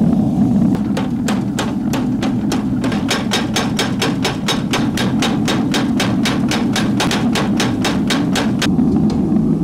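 Mechanical power hammer striking a red-hot steel knife blank in rapid, even blows. The blows start slower and settle at about four a second, then stop about a second before the end. A steady low hum runs underneath.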